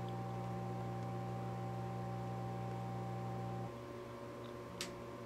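Steady electrical mains hum that drops off suddenly a little over halfway through, leaving a fainter hum. A single sharp click near the end.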